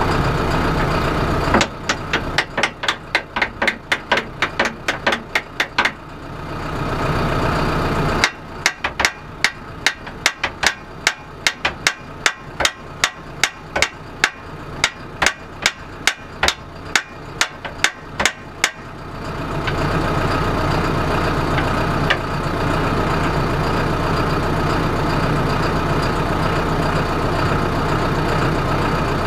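Tractor engine idling steadily, with two long runs of sharp metal-on-metal hammer blows, about three a second: one starting about two seconds in, the other running from about eight seconds in to nearly twenty.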